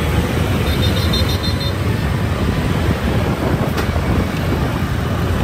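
Steady low rumble of a BMTC city bus on the move, its engine and road noise mixed with the surrounding heavy city traffic.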